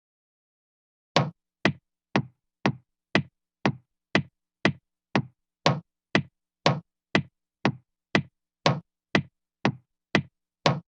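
Axe chopping sound effect: a single sharp axe hit repeated steadily about twice a second, each strike dying away quickly. It starts about a second in.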